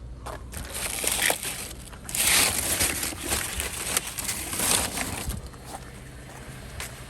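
Crinkling and rustling of a plastic-wrapped case of bottled water being picked up and handled, with small knocks, loudest in the middle and dying away after about five seconds.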